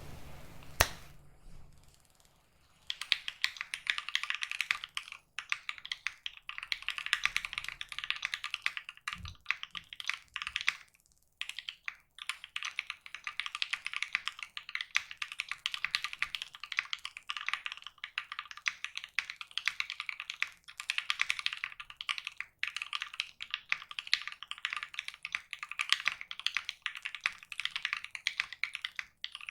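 Steady fast typing on a custom mechanical keyboard with a polycarbonate plate and Ink linear switches lubed with Krytox 205g0, after a single click about a second in. The typing pauses briefly about halfway through.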